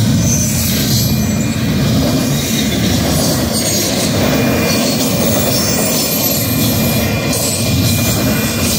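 Double-stack intermodal well cars rolling past at close range: a steady, loud rumble and rattle of steel wheels on the rails, with a thin, high wheel squeal running faintly above it.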